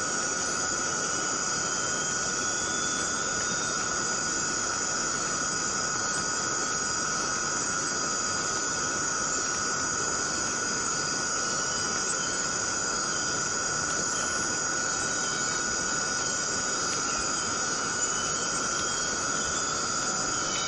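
Chorus of cicadas droning steadily, an unbroken high-pitched buzz that holds the same level throughout.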